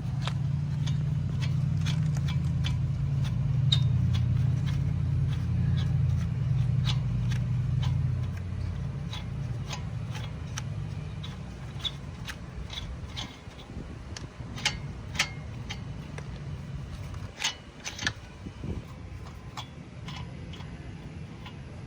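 Scattered metallic clicks and taps of a lug wrench being fitted and worked on a car wheel's lug nuts, a few sharper knocks in the second half. Under them a low steady hum fades away over the first ten seconds or so.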